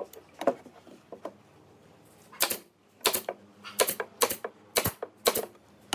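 Pneumatic brad nailer firing nails into pine boards, a string of sharp clacks. A few lighter shots come first, then about seven loud ones in quick succession over the last three and a half seconds.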